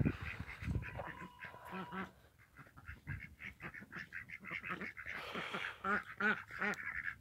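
Domestic turkeys calling in short repeated calls, with a quick run of about five calls near the end.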